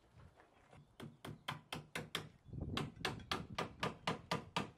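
Hammer driving nails through a PVC soffit board into timber supports: sharp, evenly spaced blows about four a second, starting about a second in, with a short pause about halfway.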